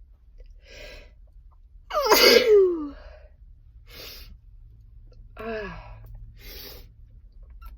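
A person sneezing: one loud sneeze about two seconds in, falling in pitch, then a shorter, weaker one with a falling pitch about five and a half seconds in, with short breaths in between.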